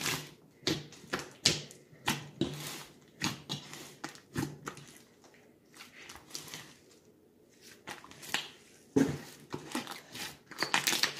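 Hands kneading and squeezing a large batch of thick white slime in a plastic tub: irregular wet squishes and crackles, a few of them sharp, every half second or so.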